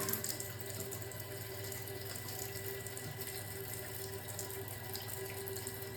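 Toilet tank fill valve running water into the open tank as it refills after a flush: a steady, even water hiss with a faint steady tone under it.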